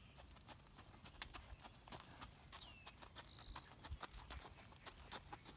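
Faint hoofbeats of a trotting horse on a gravel surface, a steady run of short clip-clops.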